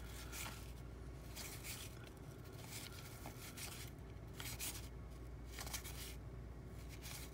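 Stiff cardboard trading cards sliding and rubbing against one another as a stack is thumbed through by hand, a soft scrape every second or so.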